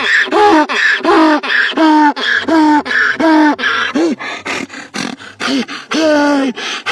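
A dog giving a rapid run of short, pitched howl-like calls, about two a second, each rising then falling, with a short break about two thirds of the way through.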